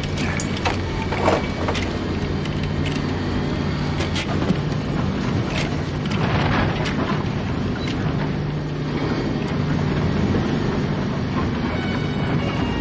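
A steady low mechanical drone, like a vehicle or machine running, with a few scattered clicks and knocks over it.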